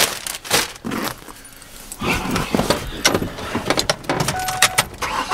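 Car keys jangling and a bag rustling as someone settles into a Ford's driver's seat and goes for the ignition. A steady high tone comes on a little over four seconds in.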